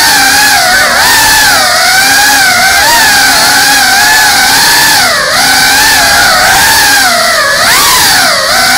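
Small FPV drone's brushless motors and propellers whining, heard from on board the drone; the pitch wavers up and down with the throttle, dipping sharply about five seconds in and again near the end.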